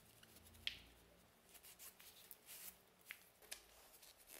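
Faint rustling and rubbing of a cloth rag wiping a knife's handle, in short irregular strokes, with one small sharp click just under a second in.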